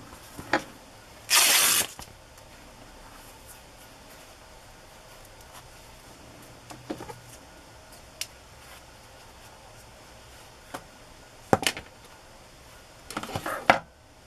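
A fabric strip being slid and lifted off a paper-covered book board, with one short loud rustle about a second in. Then quiet, with a sharp click and a few brief handling rustles of the fabric near the end.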